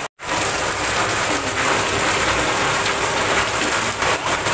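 Heavy rain falling in a steady, even hiss, after a brief dropout at the very start.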